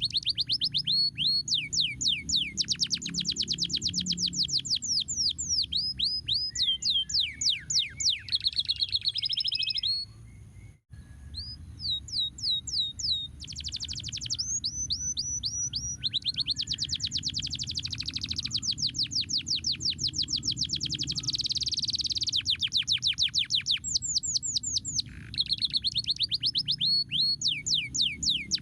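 Domestic canary singing long rolling trills of rapid downward-sliding high notes, over a low steady hum. The song breaks off briefly about ten seconds in and then picks up again.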